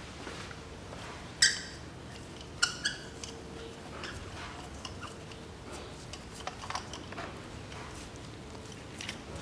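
Steel spark plug socket and extension clinking and tapping as a spark plug is unscrewed and drawn out of its plug well: one sharp ringing clink about a second and a half in, two more close together near three seconds, then a few light taps.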